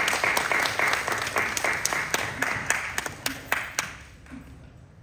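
Audience applauding. The applause thins out, with a few last separate claps about three to four seconds in.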